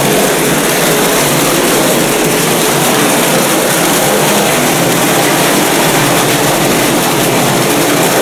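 A stream of water falling into a nearly empty concrete cistern and splashing on its floor: a steady, loud rushing noise.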